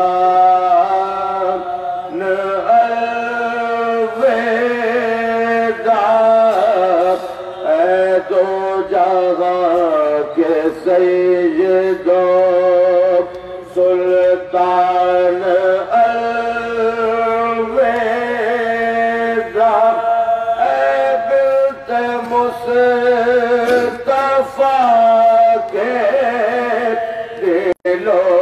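A man chanting an Urdu mourning elegy into a microphone, unaccompanied, in long held notes that bend and glide between pitches.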